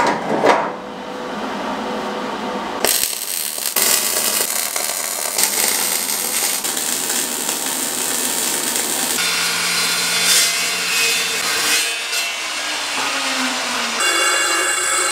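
Metalworking tool noise in several short clips. The longest is a MIG welder's arc crackling and hissing as it welds steel, starting about three seconds in. It is followed by other power-tool noise.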